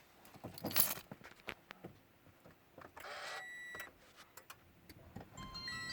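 Car cabin sounds before a cold start: a few clicks and two short rustles, then steady electronic beep tones, and about five seconds in a second set of beeps with a low electric hum as the ignition is switched on.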